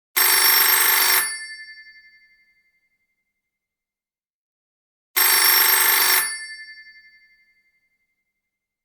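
Telephone ringing twice, about five seconds apart: each ring is about a second long, then fades out over a second or two.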